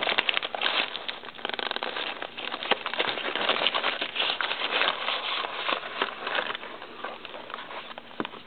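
Plastic poly mailer bag crinkling and crackling as it is torn and pulled open by hand. The crackle thins out toward the end.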